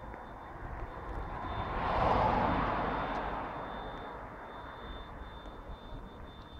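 A vehicle passing on the road: tyre and road noise swelling up, peaking about two seconds in, then fading away.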